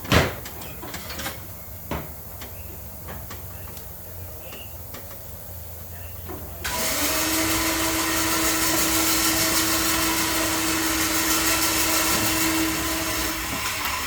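John Deere S130 riding mower with its engine running, with a few clicks. About seven seconds in the mower deck is engaged and the blades spin up with a loud, even rushing noise and a steady whine, which stops about six seconds later and winds down as the deck is switched off.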